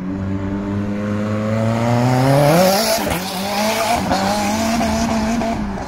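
A car engine accelerating hard, its pitch climbing steadily for about two and a half seconds, then held high and wavering before easing off near the end.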